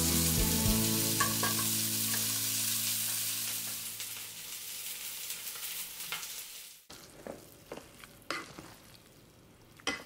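Fish pan-frying in a skillet, the oil sizzling steadily until it cuts off suddenly about seven seconds in. A few light knocks follow.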